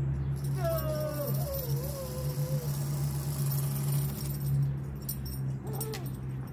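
Backyard zipline trolley running down its steel cable: the pulleys give a steady low hum with a hiss over it. A long wavering high cry rises over it about half a second in, and a short click comes near the end.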